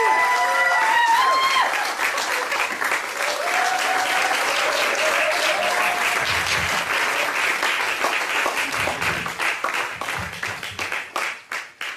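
Guests clapping and cheering, with whoops in the first couple of seconds and a long held cheer a few seconds in; the applause thins to scattered claps near the end.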